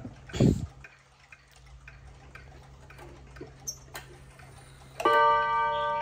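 Seiko 30-day pendulum wall clock ticking faintly, with a knock about half a second in. About five seconds in, its two nickel-silver gong rods are struck once as the minute hand is pushed to the half hour, and the tone rings on.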